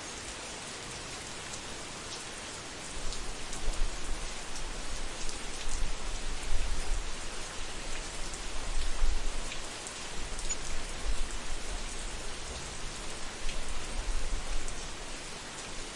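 Steady rain pattering, with distant thunder: a low rumble comes in about three seconds in and rolls on, swelling and fading.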